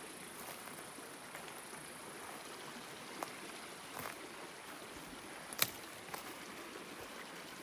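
Footsteps through dry conifer forest litter, with a few sharp twig snaps, the loudest about five and a half seconds in, over a faint steady hiss.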